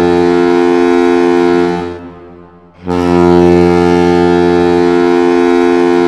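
Hockey arena goal horn sounding after a goal: a loud, deep, steady blast with many overtones that stops about two seconds in, then a second long blast starting about three seconds in.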